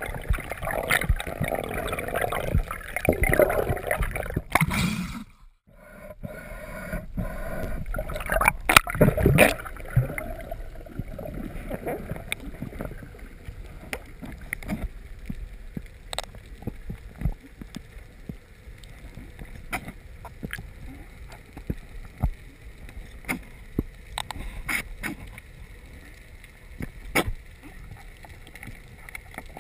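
Underwater sound picked up by a diver's camera: water rushing and gurgling for the first five seconds, cutting out briefly, and again around nine seconds in, then a quieter stretch with many scattered sharp clicks.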